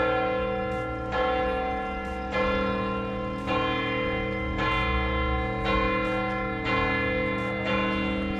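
Church bell tolling, a new strike about once a second, each ringing on and overlapping the next.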